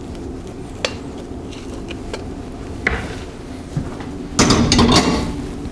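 Cooked rice being scooped out of an enamelled pot, with a few sharp knocks of the spoon against the pot. About four and a half seconds in, a louder clatter of cookware on the range.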